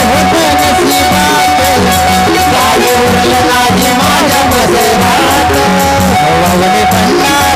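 Devotional gondhal-style song music: a steady drum beat under a long held note, with a melody line that bends up and down.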